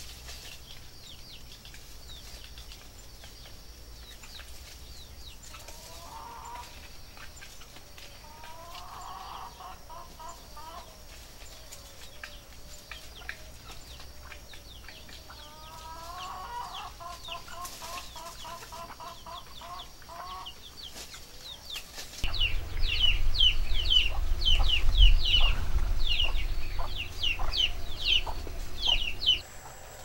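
Short runs of clucking bird calls over a steady chatter of small birds chirping high and fast. About two-thirds in, a loud low rumble starts and the chirping grows louder; both cut off suddenly near the end.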